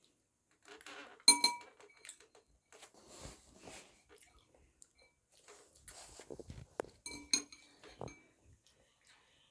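Cutlery clinking against a dish while eating noodles. There are a few sharp, ringing clinks about a second in and again around seven seconds in, with quieter scraping and handling noises between.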